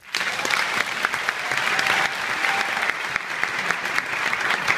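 Theatre audience applauding, starting suddenly and holding steady.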